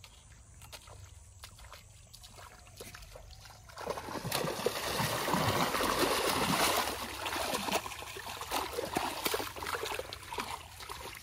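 Feet sloshing through shallow muddy water, then a person plunging in and thrashing with the arms, the splashing loudest from about four seconds in until about seven. After that, smaller choppy splashes as hands grope through the mud and weeds for fish.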